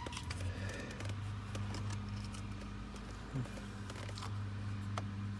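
Small clicks and taps as a BMW X3 ignition switch is handled and aligned in its housing in the steering column, over a steady low hum that starts about half a second in.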